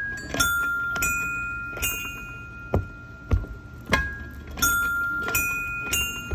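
Steps on an interactive musical floor pad: feet landing on the metal tiles, each step setting off a ringing chime tone. There are about eight notes in a row at a few different pitches, each ringing on after it is struck, with a couple of dull thumps of feet between them.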